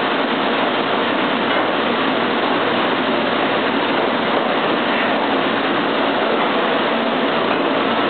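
Commercial dish room machinery, the tray conveyor and conveyor dishwasher, running with a steady, loud, even noise.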